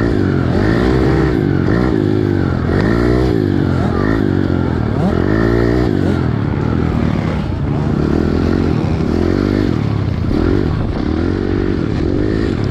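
Pit bike engine heard from the rider's helmet camera during a motocross race, its pitch rising and falling about once a second as the throttle is worked through the track, with clatter from the bike over the rough dirt.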